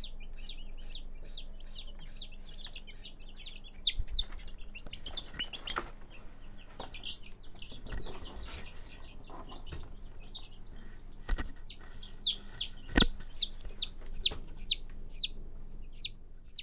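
Week-old desi chicks peeping, a fast run of high, shrill peeps about three a second that thins out in the middle and picks up again later. Scattered knocks and thumps come between the peeps, the loudest about 13 seconds in.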